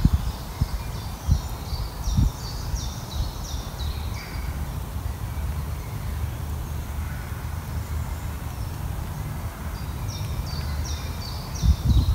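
Wind buffeting a phone's microphone, a steady low rumble with gusts. A small songbird sings twice, in the first few seconds and again near the end: each song is a quick run of high notes stepping down in pitch.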